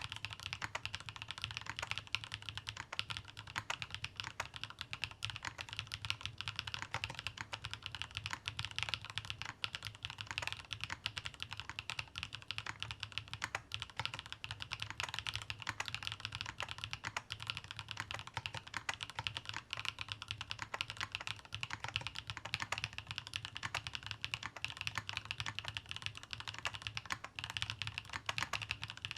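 Continuous typing on a Meletrix Zoom TKL Dyna custom mechanical keyboard built with the elastic-bar silicone mount: a dense, unbroken stream of keystrokes.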